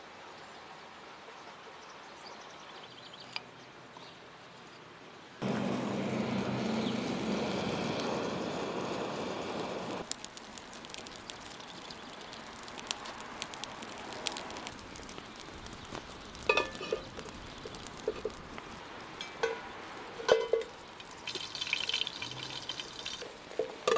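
Small wood fire of split kindling catching with a steady rushing noise for about four seconds, then crackling and popping. Later come a few ringing knocks of a steel pot on the metal stand, and near the end a short dry hiss of flour poured into the pot.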